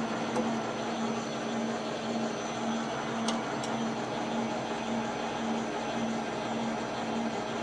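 Metal lathe running while a drill bit in the tailstock chuck bores into the snout of a 1977 Suzuki RM125 crankshaft half. A steady machine hum with a low tone pulsing about twice a second, and two faint ticks a little past three seconds in.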